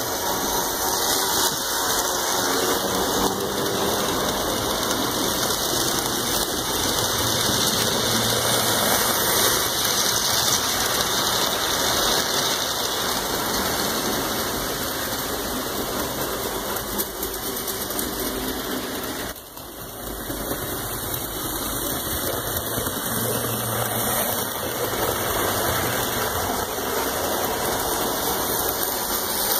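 HO scale model train running along the track: a steady whirring rumble from the locomotive and wheels, with a short dip about two-thirds of the way through.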